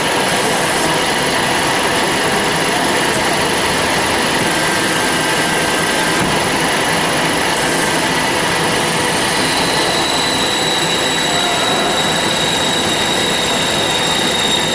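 Industrial band saw running, a steady loud mechanical noise with a high metallic whine made of several held tones. A further high tone joins about ten seconds in.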